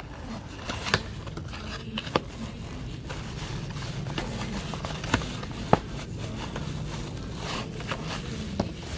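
Hands handling a small plastic study lamp and its packaging: irregular sharp clicks and knocks, a few seconds apart, with scraping and rustling in between.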